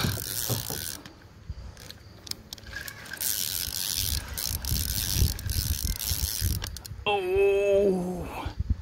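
Spinning reel being cranked to reel in a hooked catfish, its gears and line working against the fish. About seven seconds in, a drawn-out wavering tone cuts across for about a second.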